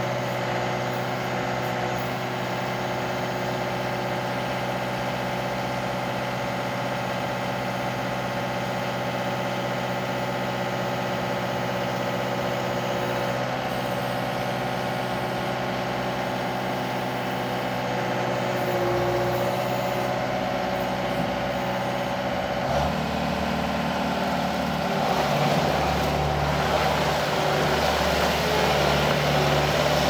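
Bobcat S250 skid steer's diesel engine running steadily while the loader arms lift the bucket. About 23 seconds in, the engine note grows deeper, louder and rougher as the machine moves off.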